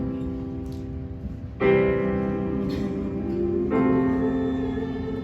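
Piano or keyboard playing held chords, with a new chord struck about a second and a half in and another near the end.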